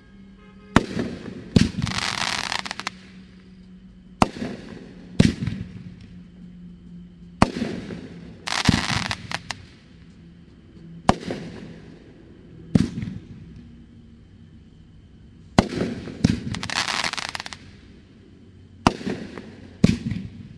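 Brothers 'Engine No. 9' 500-gram aerial fireworks cake firing shot after shot. Each shot is a sharp thump as the shell lifts and then a bang as it bursts about a second later, repeating every three to four seconds. Three of the bursts are followed by about a second of crackling.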